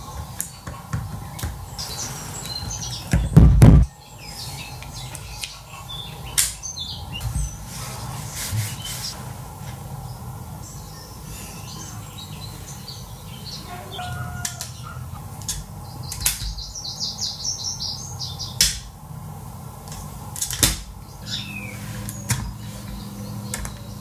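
Clicks and knocks of a small machined metal clamping jig being handled and adjusted on a wooden table, with one loud thump about three and a half seconds in. Birds chirp in the background, with a rapid high trill a little past the middle.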